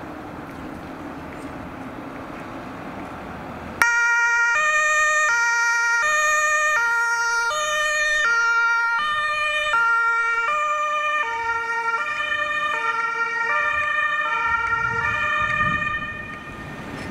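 Two-tone emergency siren (German Martinshorn) of a fire brigade ambulance cuts in suddenly about four seconds in and alternates between a high and a low tone about every two-thirds of a second, fading near the end. Before it, the steady sound of the vehicle on the road.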